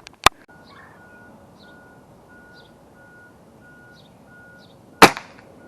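A single pellet gun shot about five seconds in, the loudest sound, with a sharp click shortly after the start. Behind it, a steady beep repeats a little under twice a second, like a vehicle's reversing alarm, and small birds chirp faintly.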